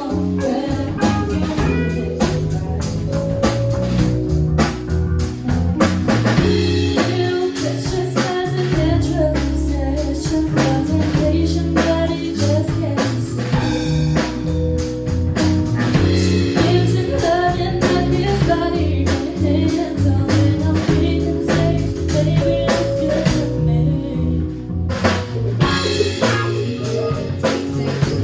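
Band music with a drum kit, guitar and singing; the drums drop out briefly near the end.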